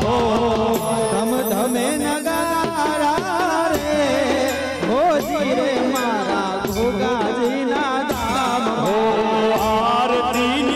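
Indian devotional folk song: voices singing with wavering pitch over instruments and regular percussion.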